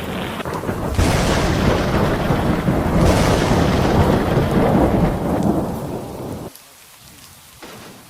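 Thunderstorm: two sudden cracks of thunder, about a second in and about three seconds in, each rolling into a loud rumble over heavy rain. The rumble fades, and the sound drops abruptly to quieter rain near the end.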